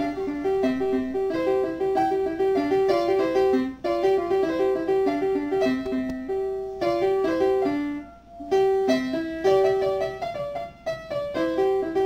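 Background music: a keyboard tune of quick, short repeated notes, with brief pauses between phrases.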